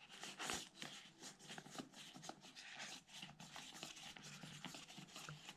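Faint handling noise of hands unscrewing the CO2 cartridge from an inflatable life jacket's inflator: light rustling and small scattered clicks, a little louder in the first half second.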